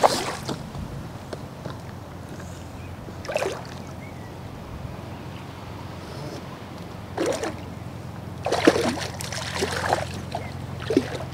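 Wind buffeting the microphone, a steady low rumble, with a few short knocks and rustles from handling the fishing pole, bunched together near the end.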